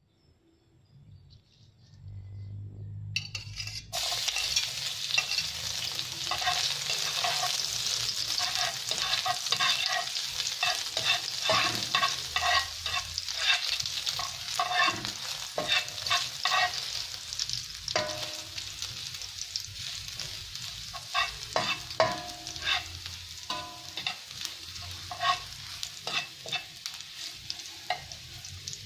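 Chopped garlic goes into hot oil in a nonstick frying pan about four seconds in and sizzles. A slotted spatula stirring it adds many quick scrapes and taps against the pan. The sizzle slowly fades.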